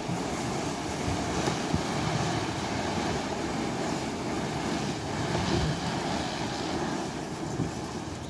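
Excavated earth sliding and tumbling off the tail of a trailer in a steady rushing crumble, with a few heavier lumps landing. The load is carried out by a hand-cranked homemade rolling floor, a PVC sheet winding onto a water-pipe roller.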